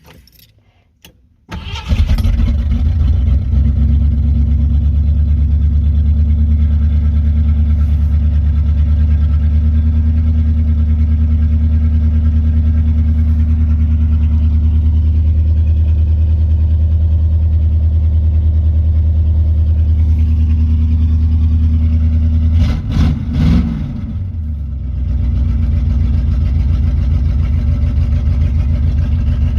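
Fox-body Ford Mustang engine starting about a second and a half in and idling steadily. Near the end it is blipped once, a quick rise and fall in pitch, then settles back to a slightly quieter idle.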